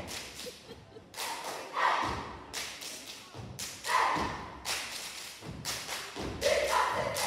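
A step team stomping and clapping in unison on a stage, with sharp hits about once or twice a second and a few group shouts between them.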